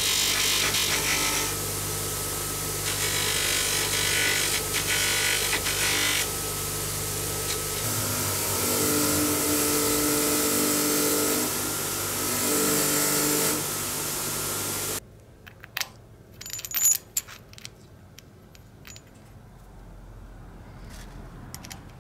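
Bench polishing machine running steadily with a low hum, its spinning wheel rubbing against metal as an aluminium wheel hub and then a steel axle bolt and nut are held to it for polishing. About two thirds of the way in the sound cuts off suddenly, leaving only a few light metallic clicks and clinks of parts being handled.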